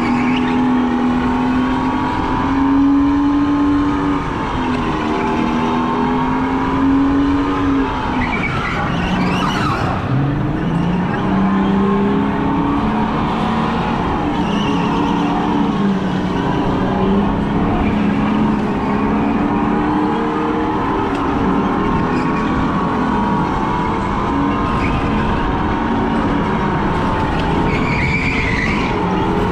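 Onboard sound of a rental go-kart driven flat out: the motor's whine rises and falls in pitch through the corners. Tyre squeal comes in a few places, most plainly about nine seconds in and near the end.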